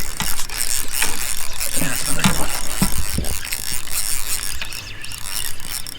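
Fishing reel working as a hooked smallmouth bass is played: a dense high whir of the reel's gears, with a few sharper clicks a couple of seconds in.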